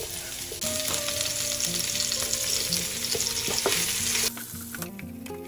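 Sliced onions sizzling in hot oil in a frying pan as they go in and are stirred with a spatula, with a few knocks of the spatula against the pan. The sizzling cuts off suddenly about four seconds in.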